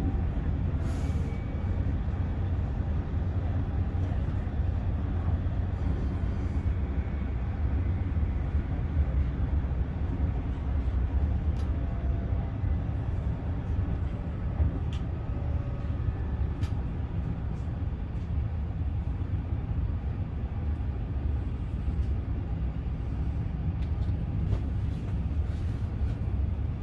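Inside the passenger cabin of an ETR 104 electric regional train running at speed: a steady low rumble, with a few faint clicks.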